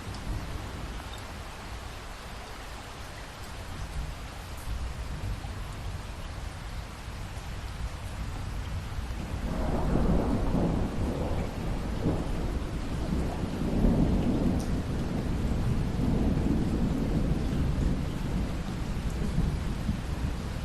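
Steady rain falling, with a roll of thunder building about halfway through and rumbling on to the end.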